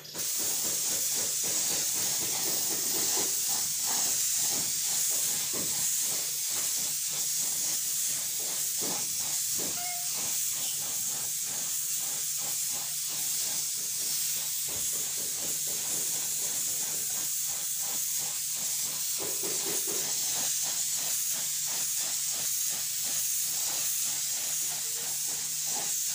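Compressed-air paint spray gun hissing steadily as it lays down a thin coat of epoxy primer, with a faint steady low hum underneath. The hiss starts abruptly.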